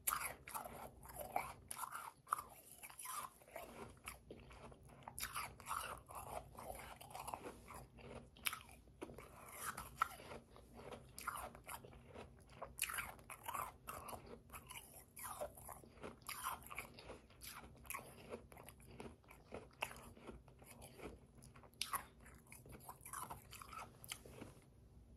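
A person chewing a mouthful of powdery, slushy ice close to the microphone: a steady run of quick, irregular crunches.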